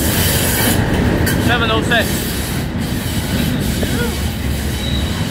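Steady low rumble of a train's coaches rolling past close by, followed by the rear English Electric Class 37 diesel locomotive going by and pulling away.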